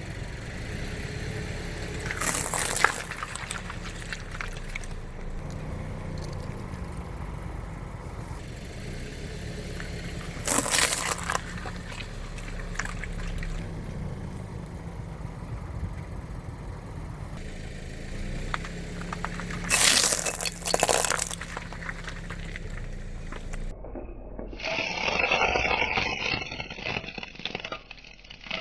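A car's engine running low and steady while its tyres roll over Christmas ball ornaments, crushing them in three short cracking bursts several seconds apart. Near the end the sound turns to a duller, continuous crackling and scraping.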